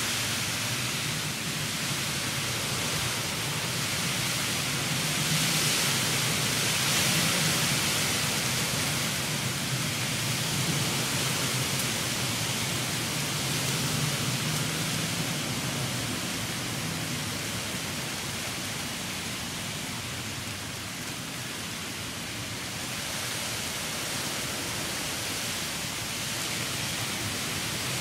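Heavy rain in a windy storm, pouring steadily as an even rushing hiss that swells a little about five seconds in and eases slightly past the middle.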